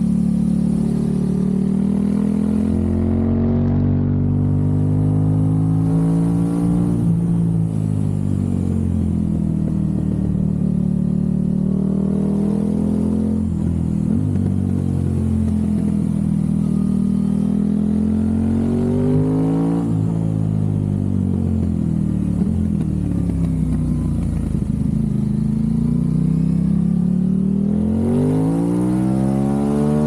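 Aprilia RS660's 659 cc parallel-twin engine through a Mivv Delta Race exhaust, ridden along a winding road: the engine note climbs under throttle and falls away again several times as the bike accelerates out of bends and slows into the next.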